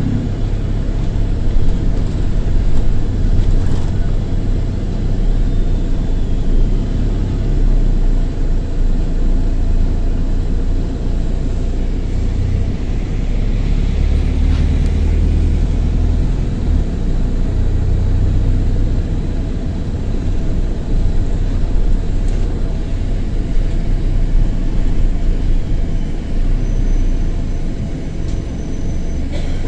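Double-decker bus's diesel engine running while under way, a steady low rumble with a loud exhaust note from a burst turbo exhaust, heard inside the upper deck. The drone swells for a few seconds about halfway through.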